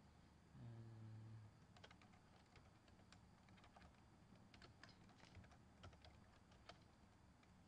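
Faint computer keyboard typing: scattered single key clicks as text is entered. A short low hum sounds about a second in, before the clicks begin.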